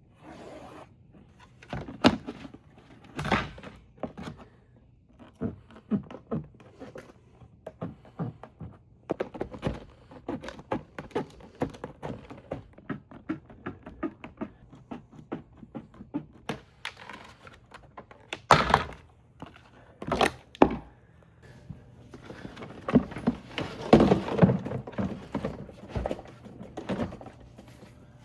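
Irregular thunks, knocks and clicks of hardware being handled, with a fast run of small clicks in the middle and a louder cluster of knocks near the end.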